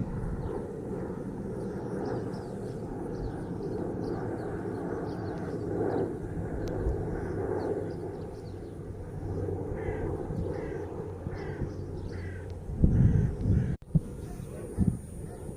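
Birds calling on a walk: a run of short, evenly repeated calls, about two a second, between about ten and twelve seconds in, over a steady low rumble. A few loud low thumps come near the end, followed by a brief dropout.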